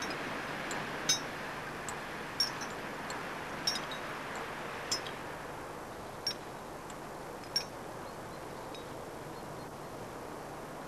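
Sharp, light metallic clinks, six of them about 1.3 seconds apart, over a steady rushing noise that thins out after the middle.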